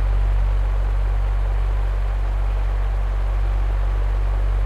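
Recorded electric fan running: a steady low hum under an even rush of moving air.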